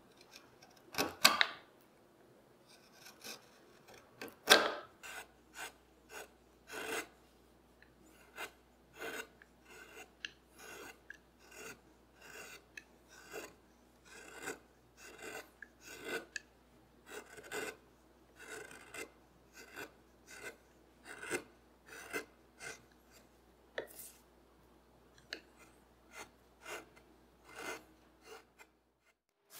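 Hand carving gouge paring walnut, a series of short, separate scraping cuts about one or two a second, each lifting a small shaving. Two sharper, louder cuts come in the first five seconds.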